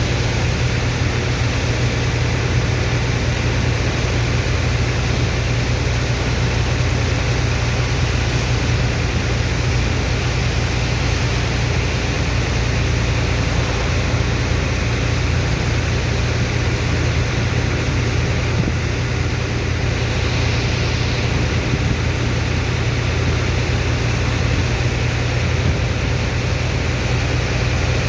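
Sand dredger's engine and pump running steadily: a constant low drone over a continuous rushing noise.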